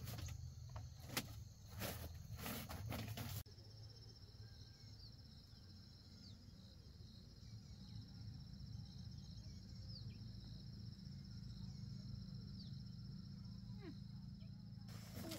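Knocks and rustling as a woven mat is smoothed on a bamboo bed, then, about three seconds in, quieter outdoor ambience: a steady high insect trill with a few short falling chirps.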